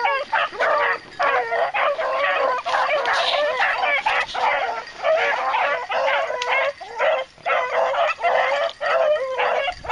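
A pack of beagles baying together on a rabbit's scent trail, many voices overlapping in quick yelps with only short breaks.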